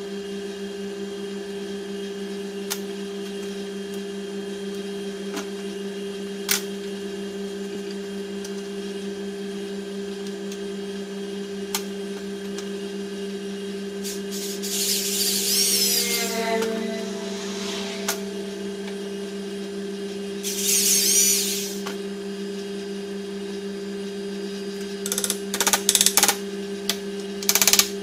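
Handheld power drill boring into a workpiece clamped in a bench vise, in two bursts of about two seconds each, the first winding down with a falling whine. Near the end comes a run of sharp knocks, over a steady low hum that runs throughout.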